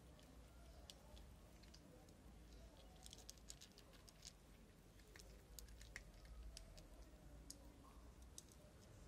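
Two cats eating dry kibble from plates: faint, irregular crunching clicks, with a quick flurry about three seconds in.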